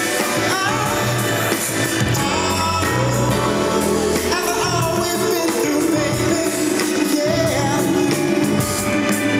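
Live concert music: the band playing with a lead singer's vocals over it through the PA, continuous and fairly loud.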